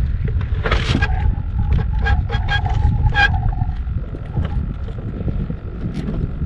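Wind buffeting the microphone over open water as a steady low rumble. Between about one and three seconds in comes a quick run of short high-pitched squeaks over a held tone.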